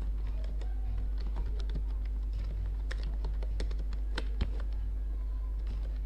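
Typing on a computer keyboard: irregular key clicks, some in quick runs, busiest in the middle, over a steady low hum.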